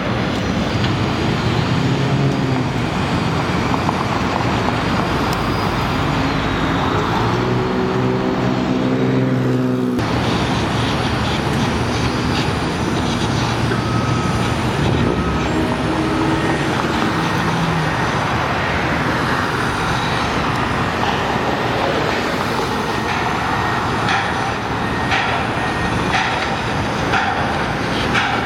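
Street traffic: steady road noise with the engine hum of passing vehicles, possibly a heavy truck or bus. The sound changes abruptly about ten seconds in.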